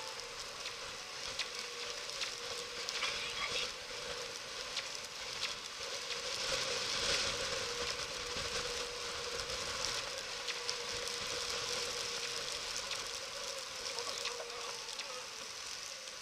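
Wind and rough water rushing past a sailing yacht under way, a steady noisy wash that swells about halfway through. A faint steady hum and scattered small taps run under it.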